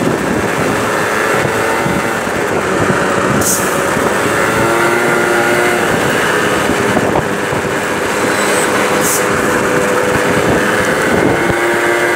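Peugeot Jet C-Tech 50cc two-stroke scooter engine running while riding in slow traffic, with steady wind and road noise on the microphone. The engine note shifts up and down in pitch a few times, and there are two brief high hisses.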